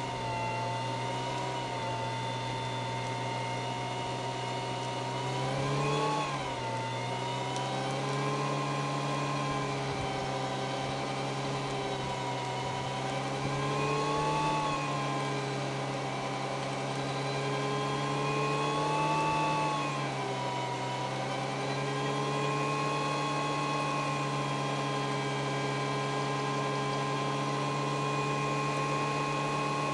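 Datsun Stanza's engine held at high revs in a stationary burnout, its rear wheels spinning. The revs hold steady, with three brief swells: about 6 seconds in, about 14 seconds in and about 19 seconds in.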